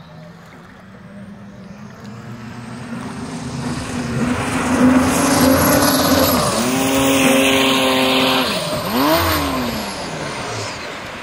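Race boat's Mercedes OM 606 inline-six turbodiesel with a Holset HX60 turbocharger running hard as the boat approaches and passes, growing loud and then fading. The engine note dips for a moment, then about nine seconds in it sweeps up and falls away as the boat spins out.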